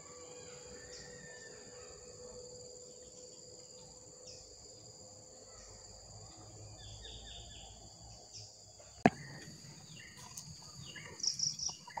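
Steady high-pitched insect chirring, with a few short bird chirps over it and a single sharp click about nine seconds in.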